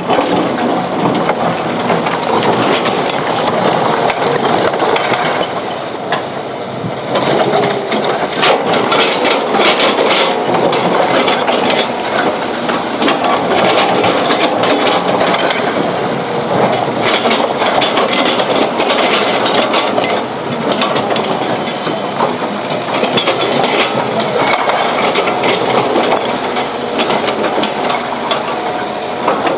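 Komatsu PC200 hydraulic excavator at work loading a dump truck: its diesel engine running steadily under load. A patch of sharp clattering and rattling comes about seven to eleven seconds in.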